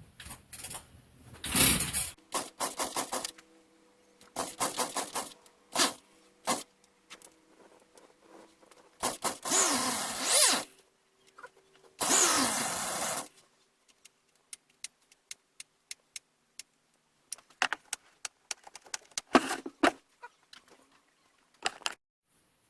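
Clicks, knocks and rattles of hand tools and chainsaw parts being handled as the chainsaw is screwed back together, with two longer scraping, whirring stretches about nine and twelve seconds in.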